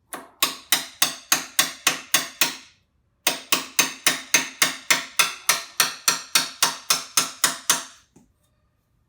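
Hammer tapping the mounting bolt through a Yamaha Raptor 700's rear shock mount to seat the new shock. The sharp strikes come about four a second in two runs, with a short pause about three seconds in.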